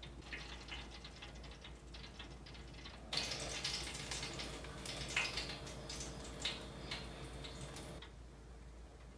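Faint crackling and sizzling of hot juices on a freshly roasted turkey, with scattered light clicks; louder through the middle stretch, where a faint steady hum also sits under it.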